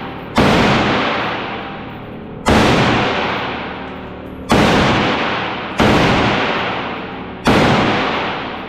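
Five gunshots from a firearm fired in an indoor shooting range, irregularly spaced, each ringing out in a long echoing decay.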